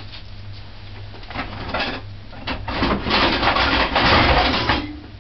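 Kitchenware being handled: scattered clinks and knocks of pots and utensils, building to a denser rattling and scraping stretch about three seconds in, over a steady low hum.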